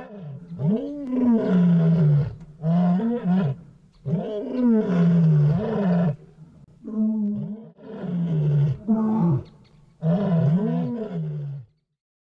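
A big cat roaring: a series of about six loud, drawn-out roars, each rising and falling in pitch, with short pauses between them. The roars stop abruptly just before the end.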